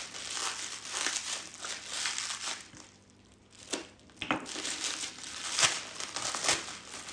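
Plastic packing wrap crinkling and crackling as it is pulled open and peeled off a crystal, with a brief lull about three seconds in.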